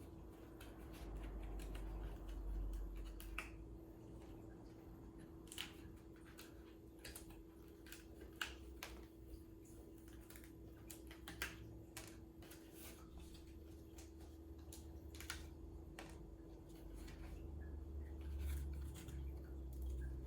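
Cardboard being handled and fitted together: scattered light clicks, snaps and taps of the panels and tabs, with soft low thumps of handling.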